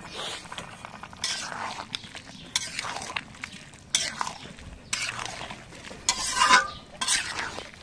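Metal spatula scraping and stirring through a thick curry in a large aluminium karahi. It goes in repeated strokes, roughly one every half second to a second, as chopped coriander leaves are mixed in. One stroke late on rings briefly against the pan.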